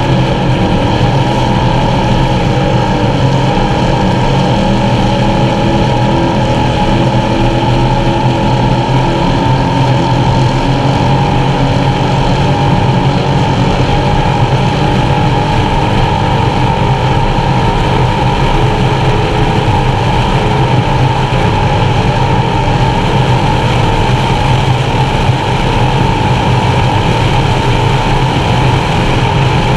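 Engines of a Skater 368 Supercat offshore racing catamaran running flat out at a steady race speed, a loud, even drone heard from inside the enclosed cockpit.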